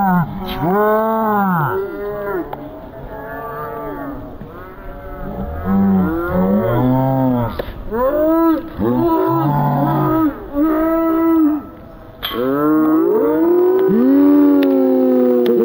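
Several people's voices making long, wordless calls that swoop up and down in pitch, overlapping one another, with a long call falling in pitch near the end.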